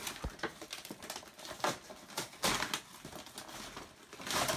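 Wrapping paper being torn and crumpled as a present is unwrapped: irregular rustling and ripping, with louder rips about one and a half, two and a half and four and a half seconds in.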